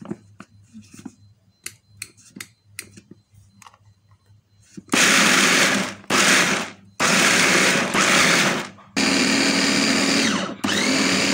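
Electric mini food chopper grinding roasted peanuts in pulses: a few light clicks first, then, about halfway in, five bursts of the motor and blades of about a second each, the last winding down with a falling whine.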